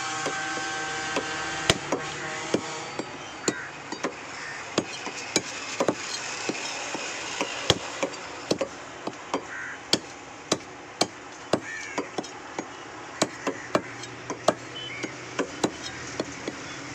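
A large curved butcher's cleaver chopping goat meat on a wooden block: sharp, separate chops at an uneven pace, about two a second, each blade strike knocking into the wood.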